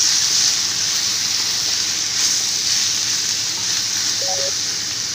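Freshly added marinated boneless chicken pieces sizzling in hot coconut oil in an iron kadai while being stirred with a wooden spatula; a steady loud sizzle that eases slightly toward the end as the wet chicken lets out water.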